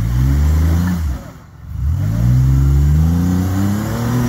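Off-road 4x4's engine revving under load on a rock climb: the revs rise, drop off about a second in, then climb again and hold high.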